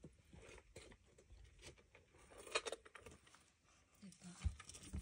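Faint handling noise from a handbag being moved: fabric and leather rustling, with a few light clinks from its metal hardware.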